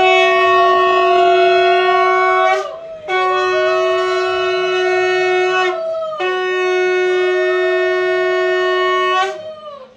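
Conch shell (shankha) blown in three long, steady blasts, each two to three seconds, with brief breaks between them.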